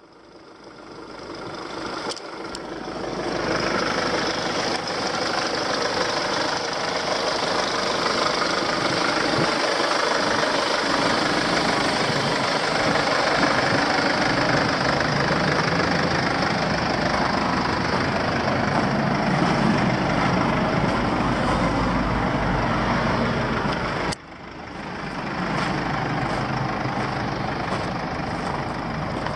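Mercedes-Benz Sprinter 313 CDI's 2.1-litre four-cylinder diesel idling steadily. It fades in over the first few seconds, cuts out sharply about 24 seconds in and returns.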